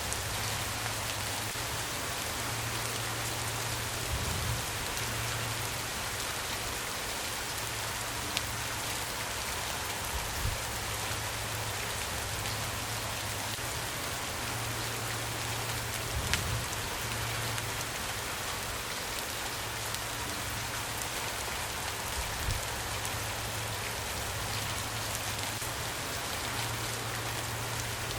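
Steady rain falling on a surface: an even hiss with occasional sharper single drop impacts. A low hum comes and goes underneath.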